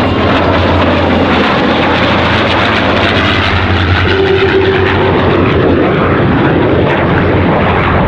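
Loud, steady aircraft engine noise as a display aircraft flies past.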